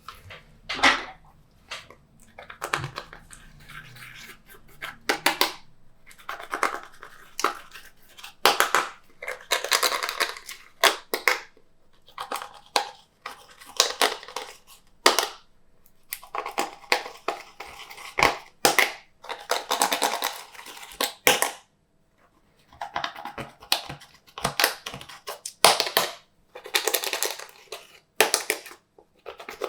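Glossy slime being squeezed, stretched and mixed by hand, with sticky crackling and clicking pops in irregular bursts and brief pauses.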